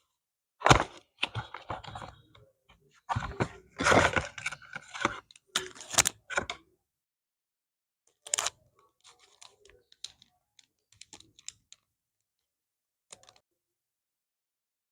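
Stationery packaging handled and opened up close: a quick run of rustles, taps and clicks for about six seconds, then a few scattered light ticks.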